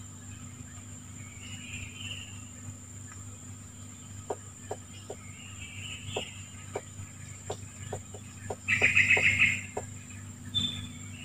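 Tropical forest ambience: a steady high insect drone with birds calling every few seconds, and a run of light sharp clicks. Near the end comes a loud, rapid chattering bird call.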